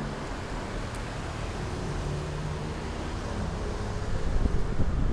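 Low steady vehicle rumble, with wind buffeting the microphone from about four seconds in.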